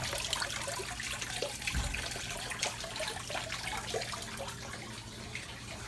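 Water trickling and splashing in a small pond, a steady busy patter, with one dull low thump about two seconds in.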